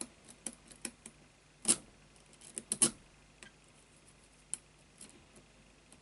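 Lock pick and tension wrench working the pin stack of an Avocet padlock: irregular small metallic clicks and taps as pins are pushed up under light tension, aiming for a false set. Two sharper clicks stand out about a second and a half and nearly three seconds in, and the clicks thin out after that.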